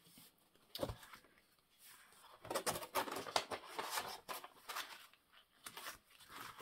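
Paper and card being handled and slid into place: a light knock about a second in, then a stretch of rustling with small taps and clicks.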